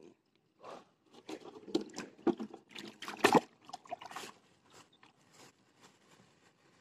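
Crunching and rustling of dry straw and grass as hands handle a freshly caught climbing perch beside a wire keep net. A run of short crackles is loudest about three seconds in and then thins to a few faint ticks.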